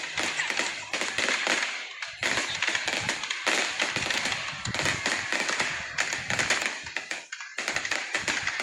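Fireworks display crackling: a dense, continuous rattle of many small rapid pops, easing briefly twice.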